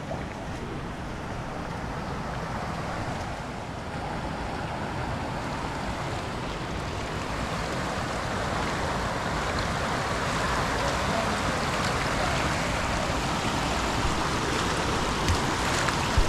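Steady rushing water, growing gradually louder.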